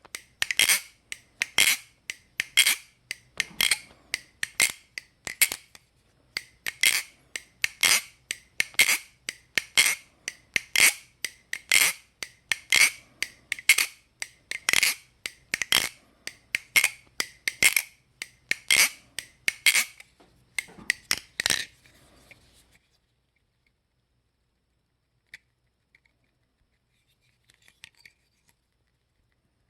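A Bgrooves Replicant butterfly knife (balisong) with G10 handle scales being flipped for a sound check, its handles and blade clicking crisply about twice a second, often in quick pairs. The clicking stops about 22 seconds in.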